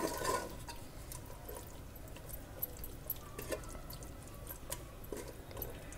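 Wooden spoon stirring yogurt through fried onions in a pressure cooker: soft, wet squelching with a few light taps of the spoon against the pot.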